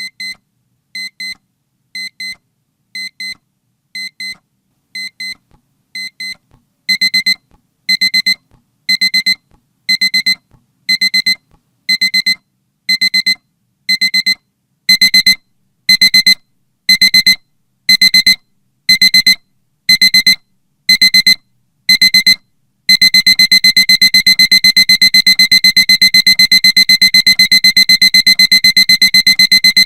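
Digital alarm clock beeping, signalling that the 20-minute countdown has finished. High double beeps come about once a second and grow louder in two steps, then from about two-thirds of the way in they turn into a fast, unbroken beeping.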